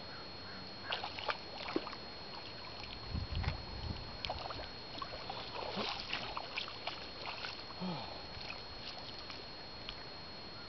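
Irregular wet splashing, squelching and crackling of hands and bare feet in wet sand and shallow water while digging a geoduck by hand, over a steady hiss, with a few low thumps a little after three seconds in.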